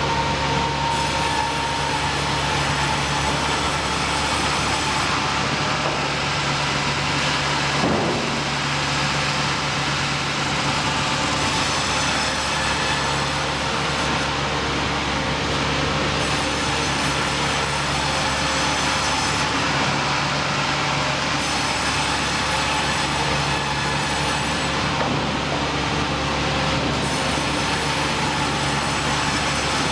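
Heavy machinery running steadily: a constant low hum under a loud mechanical noise, with a hiss that comes and goes every few seconds and a brief knock about eight seconds in.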